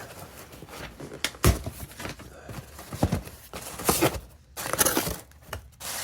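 Packing material and boxes being handled and pulled apart: rustling and crinkling with several sharp knocks and taps.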